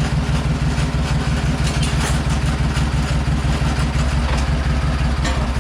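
An engine idling steadily, with a fast, even low pulsing.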